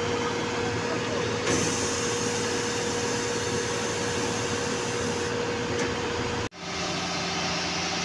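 Ready-mix concrete mixer truck and trailer-mounted concrete pump running together, a steady machine hum with a steady whine. About six and a half seconds in it breaks off abruptly and comes back as a similar hum with a lower tone.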